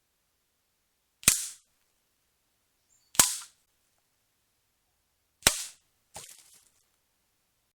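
.177 air rifle fired three times, each shot a sharp crack with a short tail, about two seconds apart. Soon after the third shot comes a fainter, longer rattle.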